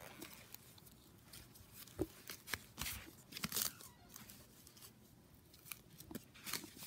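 Faint rustling with scattered short clicks and scrapes as hands handle a plastic baby doll and its clothes.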